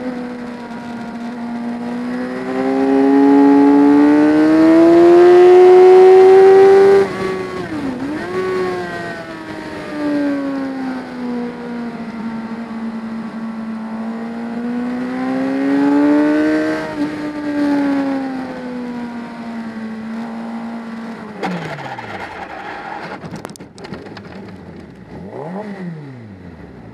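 Racing motorcycle engine heard from onboard, revving hard and rising in pitch, cut off sharply, then pulling again through the corners. About 21 seconds in the engine note falls away steeply amid a rush of noise and a few sharp knocks as the bike crashes, and the engine runs down.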